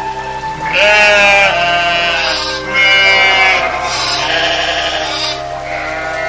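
Sheep bleating again and again, the two loudest bleats about a second in and about three seconds in, over steady background music.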